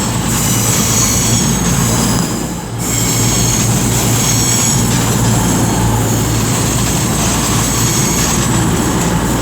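A pair of coupled Class 220 Voyager diesel-electric units running into the platform. Their underfloor diesel engines and steel wheels on the rails make a steady, loud rumble, with a high squeal from the wheels.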